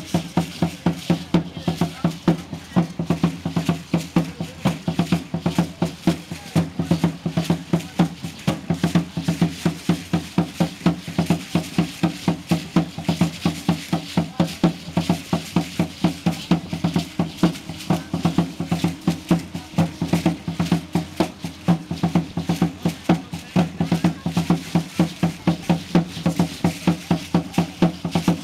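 Aztec dance drum beaten in a fast, steady beat, with the dancers' ankle seed-pod rattles shaking along with each step.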